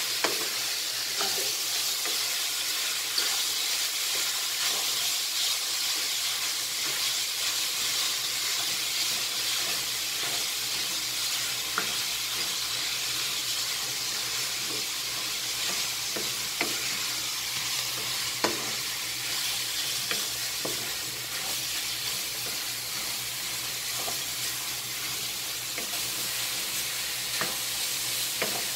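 Ground meat sizzling steadily as it fries in a pan on a gas stove, stirred with a wooden spatula, with a few short knocks of the spatula against the pan.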